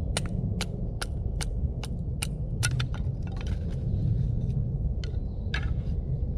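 Wooden mallet striking the spine of a knife to split a hazel stick lengthwise (batoning). There is a run of sharp knocks, about two and a half a second, for the first three seconds, then a few scattered knocks and clicks, over a steady low rumble.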